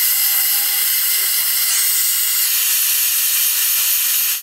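MAPP gas hand torch burning with a steady hiss, its flame held on the small end of a steel connecting rod to heat it until the heat-pressed wrist pin can be pressed out.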